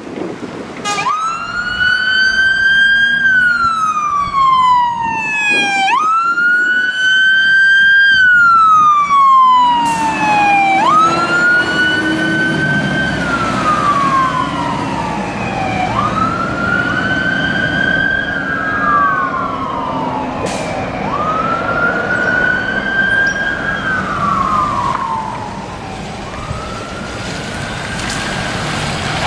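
Fire engine siren in wail mode: each cycle climbs quickly, then slides slowly down over about four seconds, repeating about every five seconds. The appliance's running and road noise sits underneath.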